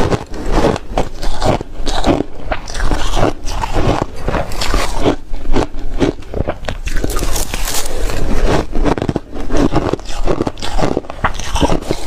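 Re-shaved refrigerator ice being bitten and chewed close to the microphone: a continuous, irregular run of loud crunches and crackles.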